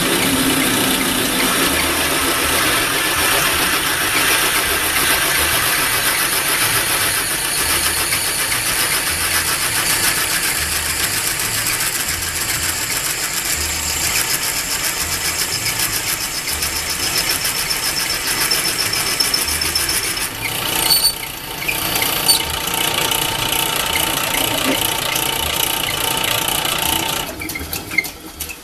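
South Bend 9-inch metal lathe running at slow speed while a 1/2-inch twist drill in the tailstock chuck bores into the bevel gear's old shaft: a steady machine run with high whining tones. A couple of sharper knocks come about two-thirds in, and the running falls away shortly before the end as the lathe is shut down.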